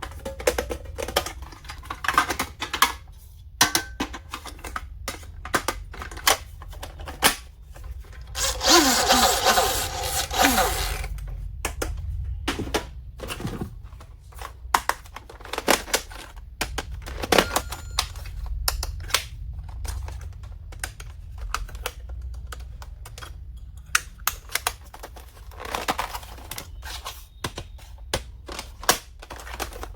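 Hands unboxing and handling small plastic stationery items: irregular clicks and taps of hard plastic being opened, set down and fiddled with, and a louder stretch of rustling packaging about nine seconds in.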